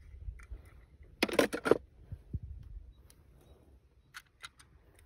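Small, sharp clicks and clacks: a quick cluster of four or five about a second in, a few single ticks near the end, and a couple of soft low thumps between them.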